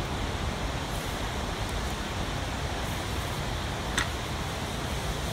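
Steady background hiss, with one brief click about four seconds in as the oil pickup tube, its O-ring oiled, snaps into the LS1 oil pump.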